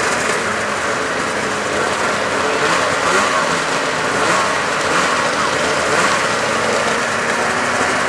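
Race snowmobile engines idling steadily, an even mechanical drone with no revving.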